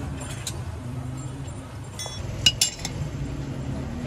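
Small forged steel axe-head pieces clinking against each other and the iron anvil block as they are handled: a faint clink, then two sharp ringing clinks close together about two and a half seconds in.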